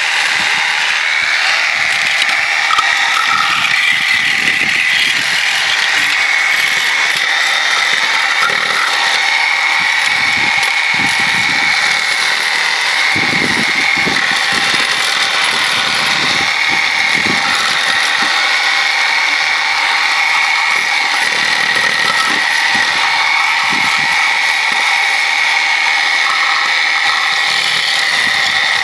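Corded reciprocating saw fitted with a scraper blade, running steadily as it chatters against a boat's outdrive and scrapes barnacles off, with irregular dull knocks through the middle as the shells break away.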